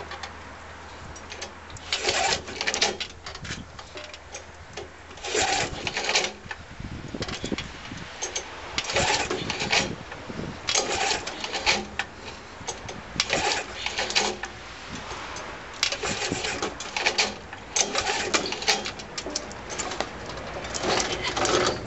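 Briggs & Stratton 3.5 hp Classic lawnmower engine being pull-started again and again, each yank of the recoil starter cord a short whirr, roughly every couple of seconds. The engine turns over but does not fire or keep running.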